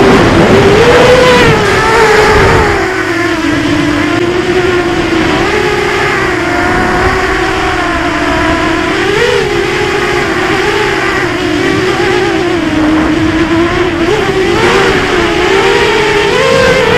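Eachine Tyro 129 FPV racing quadcopter's brushless motors and propellers whining, the pitch wavering up and down with the throttle as it flies. A low rushing noise is loudest in the first few seconds.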